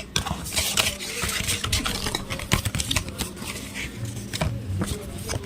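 Hands taking the small contents out of an earbuds box: rustling of packaging with many light clicks and taps.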